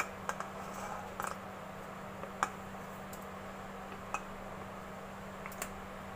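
Scattered light clicks and taps of a steel bowl against a steel kadhai as sugar syrup is poured into milk, over a steady low hum.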